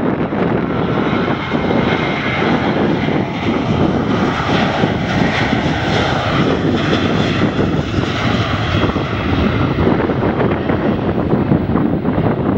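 Jet airliner's engines running as it passes, the whine building to its loudest about halfway through and then easing, over wind buffeting the microphone.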